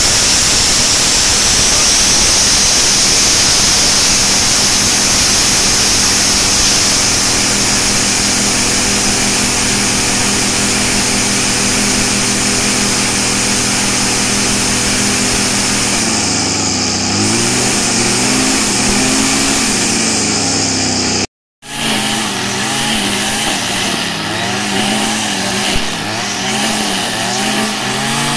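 STIHL FS 56 two-stroke brush cutter engine running steadily, just started after a year of standing. It then revs up and down in waves, drops out for a moment, and runs on with uneven revs as it cuts grass.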